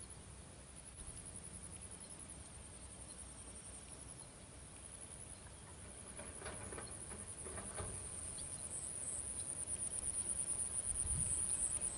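Insects trilling: a high, rapid, even pulsing that grows louder toward the end.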